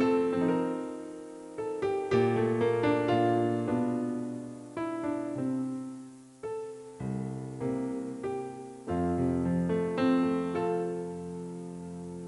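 Background music: a gentle piano piece, notes struck and left to ring and fade.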